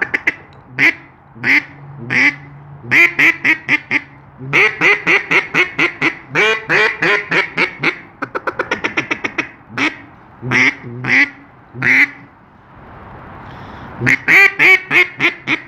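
Stock Echo double-reed duck call blown to imitate a mallard hen: single quacks, a long run of quacks, a fast run of short chattering notes about halfway through, more single quacks, and another run of quacks near the end.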